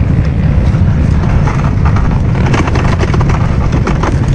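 Off-road vehicle riding on a rough dirt trail: a steady engine and wind rumble buffeting the microphone, with frequent short knocks and rattles from bumps.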